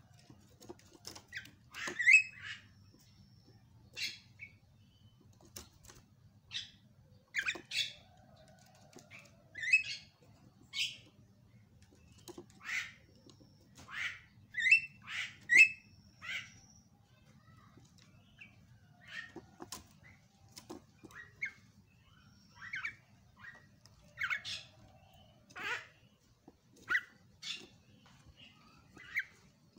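Javan myna (jalak kebo) giving short, harsh, scratchy calls and chattering notes in separate bursts, one every second or two, over a faint low hum.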